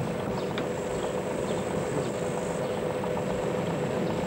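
A car engine idling with a steady hum.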